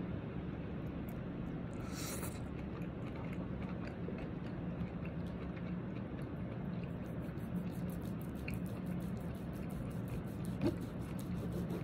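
Quiet eating sounds: chewing on steak and a knife sawing through the thick steak, with a sharp knife-on-plate click near the end, over a steady low hum.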